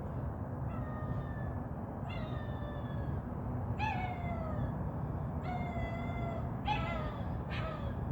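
A puppy crying: about six drawn-out, whining yelps, each roughly half a second to a second long and mostly falling in pitch, over a steady low background rumble.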